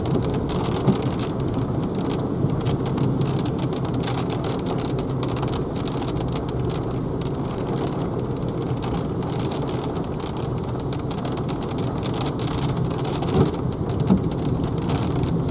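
Rain pattering on the windscreen and roof of a Renault Zoe electric car, heard inside the cabin, over a steady rush of tyre and road noise on the wet road at speed. Two soft knocks near the end.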